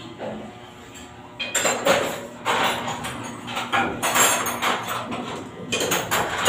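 Irregular metallic clanking and knocking, as of tools and engine parts being handled against metal. It starts about a second and a half in and goes on in uneven clusters.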